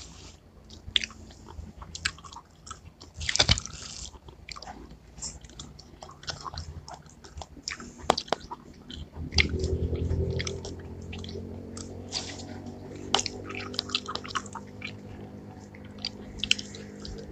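Chewing and biting juicy watermelon chunks in syrup: wet, squishy mouth sounds broken by many short sharp clicks. A low steady hum comes in about halfway through.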